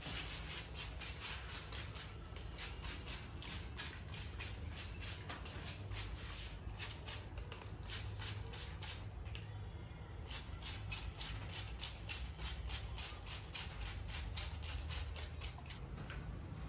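Hair-cutting scissors snipping hair in a quick, even rhythm of about four snips a second, with a few short pauses.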